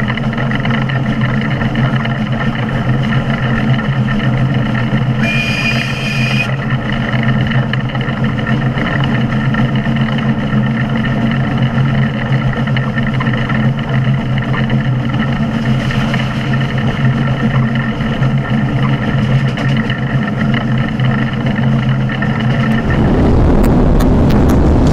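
PKP Tkt48 steam tank locomotive running, heard close from its side: a steady mechanical hum of several level tones. About five seconds in comes a brief high whistle with a hiss of steam. Near the end the hum cuts off and a louder, even rushing of wind and running noise takes over.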